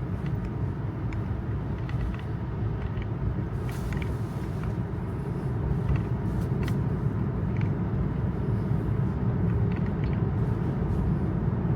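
Road and tyre noise inside a moving Tesla's cabin: a steady low rumble that grows slightly louder toward the end, with a few faint clicks.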